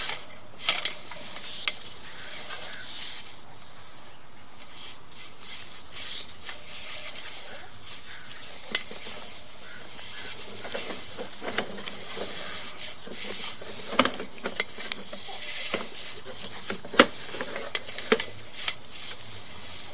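Irregular clicks and rubbing knocks as a sewer inspection camera's push cable is fed further down the line, thickest in the second half, over a steady hiss.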